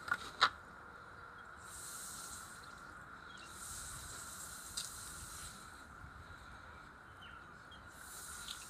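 Water spraying from a garden hose, a hiss that comes and goes in spells of a second or two. Two sharp clicks just at the start.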